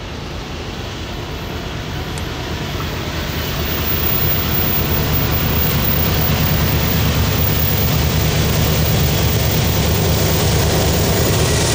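Lead GE diesel locomotives of a freight train approaching under heavy throttle, their engines working hard with a deep rumble that grows steadily louder as they near.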